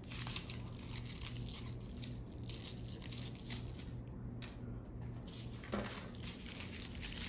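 Plastic wrapping on an LOL Surprise doll ball crinkling and tearing as it is unwrapped by hand, in faint, irregular rustles.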